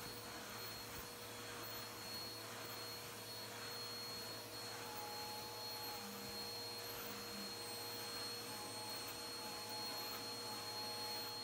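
Stick vacuum running steadily as its head is worked over a fabric mattress top: a steady motor hum with a high thin whine. A second, lower tone joins about five seconds in.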